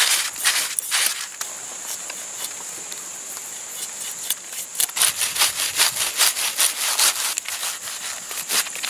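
Knife blade scraping and cutting at a freshly scaled fish, short rasping strokes in quick runs, one in the first second or so and another from about five seconds in, with quieter working between.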